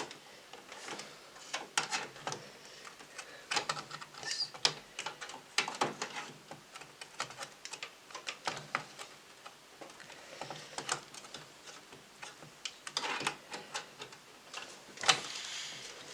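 Irregular small clicks and taps of hardware being handled: a graphics card being lined up with the PCIe slot in a desktop PC case, plastic and metal parts knocking lightly, with a few louder clusters of clicks in the second half.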